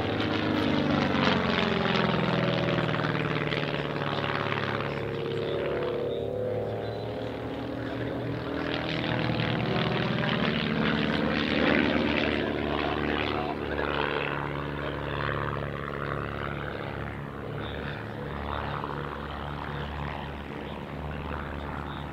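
Van's RV-8 aerobatic aircraft's piston engine and propeller droning through a display pass, the note dropping sharply in pitch about a second in as it goes by and rising again around ten seconds in.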